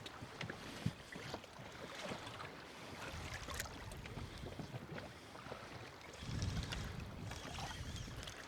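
Water slapping against the hull of a small drifting boat, with wind on the microphone and scattered small knocks and ticks. A low rumble of wind swells about six seconds in.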